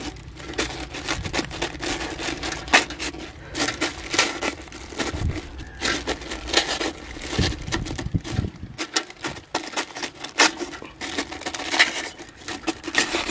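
Butter paper crinkling under a hand while a kitchen knife's point pokes holes through it: a run of sharp, irregular crackles and taps.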